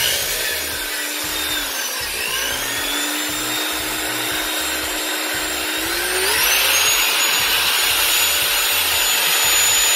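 Wall sander's brushed motor running on a test, now on adapted Makita carbon brushes that replaced the burnt-out originals; the motor works again. A steady whine that sags slightly about two seconds in, then climbs to a higher pitch about six seconds in and holds there.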